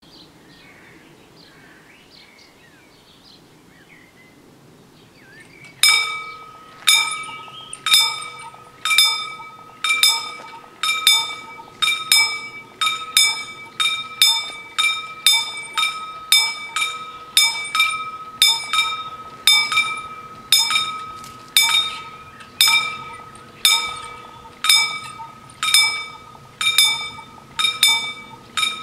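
Level-crossing warning bells start ringing about six seconds in: two bells, each striking about once a second, out of step with each other, so the strokes overlap and drift. They signal that the crossing is closing for an approaching train. Before that, faint birdsong.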